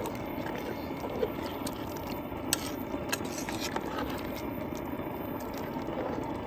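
A metal spoon stirring rice, meat and water in a cooking pot, with scraping and a few sharp knocks against the pot, over a steady background rush.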